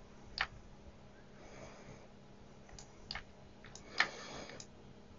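Faint clicks from the plastic trigger of a handheld Fluke 62 MAX infrared thermometer: four sharp clicks spread over a few seconds, the loudest about four seconds in.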